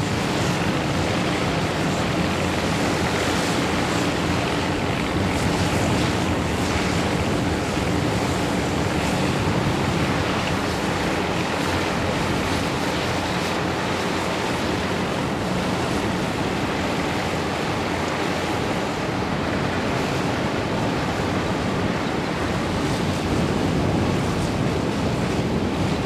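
Several vintage Massey-Harris 21 self-propelled combine harvesters running together while cutting and threshing wheat: a steady, even mechanical rumble and rushing wash from their Chrysler petrol engines and threshing gear.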